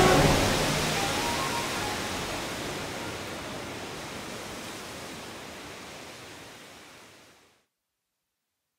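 Ocean surf, an even rushing wash with the last notes of music dying away in its first second, fading out steadily to nothing about seven and a half seconds in.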